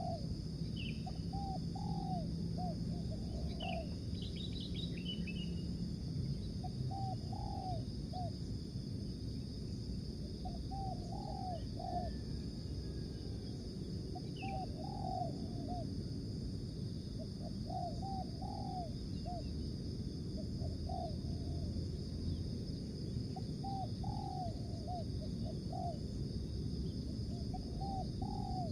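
Spotted dove cooing: short phrases of two to four low, rounded coo notes, repeated every three seconds or so. A few brief, higher chirps from other small birds come in near the start and again around the middle, over a steady background hiss.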